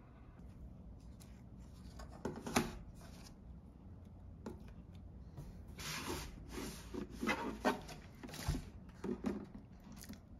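Hands handling an empty plastic milk jug on a wooden tabletop: scattered rubs, scrapes and light knocks of thin plastic, busiest in the second half, with one sharp click about two and a half seconds in.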